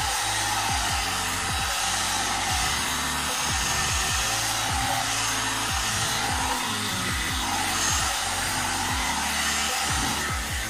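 A hot air brush, a one-step hair dryer brush, blowing steadily, its fan motor running without a break.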